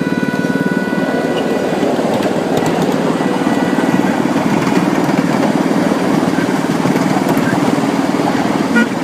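Small engine of a ride-on miniature railroad locomotive running steadily close by, with short horn toots beginning right at the end.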